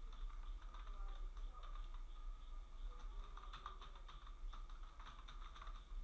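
Faint typing on a computer keyboard: quick, irregular key clicks, over a steady low hum.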